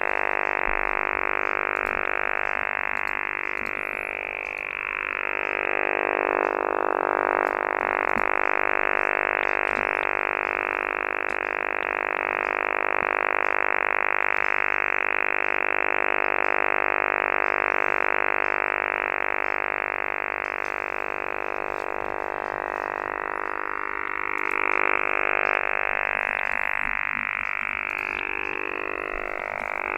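Over-the-horizon early-warning radar signal heard over a radio receiver: a continuous, rapid, rasping buzz held steady. A few whistling tones glide through it about four seconds in and again near the end.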